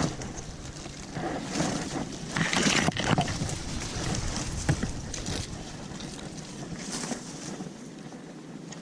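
Wind gusting on the microphone as a low rumble, with a louder burst of rustling noise about two to three seconds in; the rumble eases off after about six seconds.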